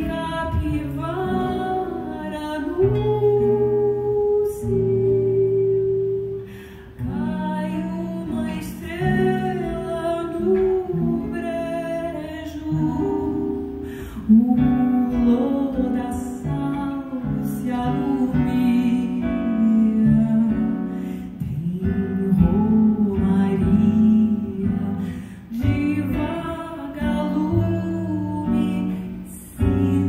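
Woman singing a slow song, accompanied by plucked acoustic guitar.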